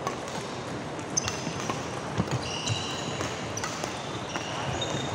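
Badminton rally: rackets hitting the shuttlecock in several sharp knocks, with short high squeaks of sports shoes on the court floor.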